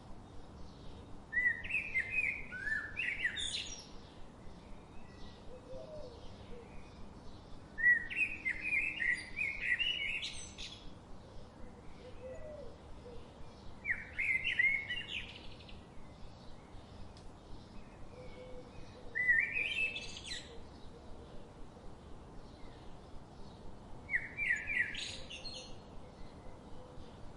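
Forest songbirds singing. One bird repeats a short song phrase of about two seconds five times, roughly every five to six seconds, each phrase rising to a high flourish at the end. Fainter, quicker chirping from other birds runs underneath.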